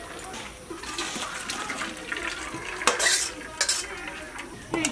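Boiled elephant-foot yam stalks and their cooking water poured from an aluminium kadai into a metal colander: water splashing and draining through, with metal pots clanking. The loudest splash comes about three seconds in.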